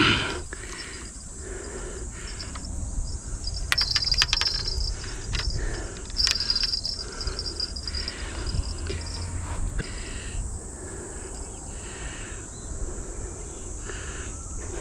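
Insects chirping steadily, with brief bursts of rattling and clattering about four and six seconds in as fishing gear is handled.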